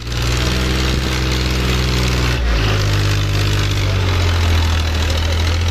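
John Deere tractor's diesel engine running hard under a heavy pulling load, a loud, steady note whose pitch shifts abruptly about two and a half seconds in.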